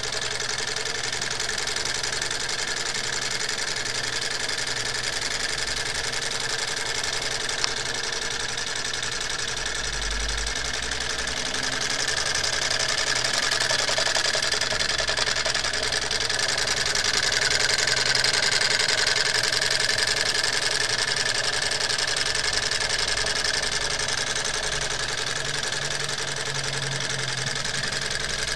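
Homemade tin-can Stirling engine running steadily, its wire crankshaft and disc flywheel turning, with a slight swell in level partway through.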